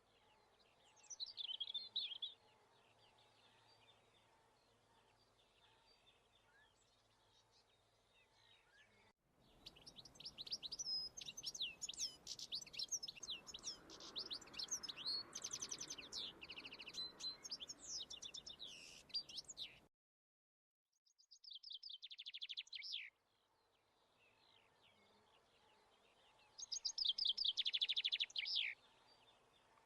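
Small garden songbirds singing and twittering in bursts of rapid, high notes: a short burst about a second in, a long busy stretch in the middle, and two more short bursts near the end.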